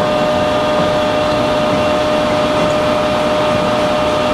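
Steady machine hum with a constant whine, as from a running motor or engine.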